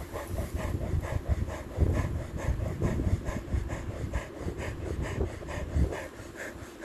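A cheetah panting hard while it lies resting after a sprint and kill, in a quick, even rhythm of about three to four breaths a second.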